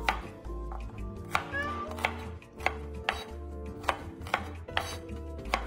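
Chinese cleaver chopping shallots on a cutting board: sharp knife strokes hitting the board, about two a second.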